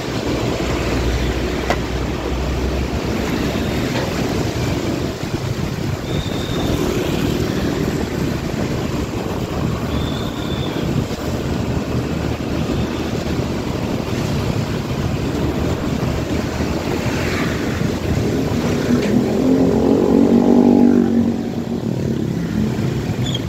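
Steady engine, wind and road noise of a scooter riding in traffic on a wet road. About three-quarters of the way through, a louder droning engine tone from a passing vehicle rises over it for a couple of seconds.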